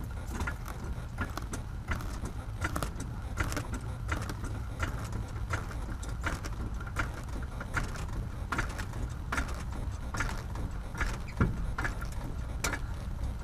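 A hydraulic floor jack being pumped to lift a car, giving a metallic click or clank with each stroke, roughly every three-quarters of a second, with a louder knock near the end.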